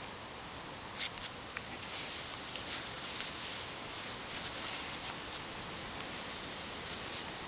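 Hands rubbing and rolling stinging-nettle fibres against a trouser leg to twist them into two-ply cord: a few light clicks about a second in, then a soft swishing rub from about two seconds in, over a steady background hiss.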